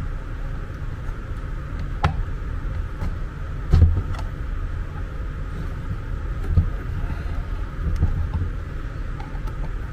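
Scattered clicks and knocks of a hard plastic drive housing being gripped and pried at to open it, the loudest knock about four seconds in, over a steady low rumble.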